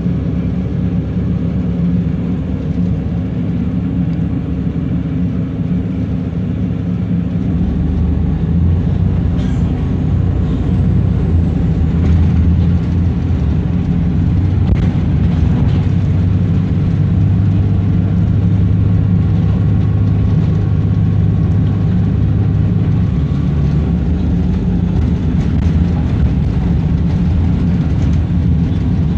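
Wright Eclipse single-deck bus under way, heard from inside the passenger cabin: a steady low engine drone with road noise and body rattle. The engine note grows louder and deeper about seven seconds in and stays that way until near the last few seconds.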